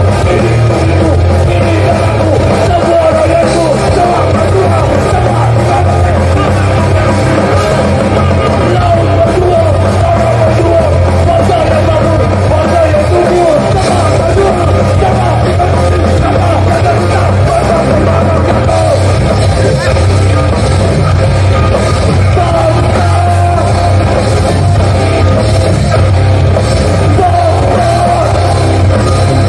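Live hardcore punk band playing loud, distorted guitars, bass and drums with shouted vocals, recorded from the crowd at a gig.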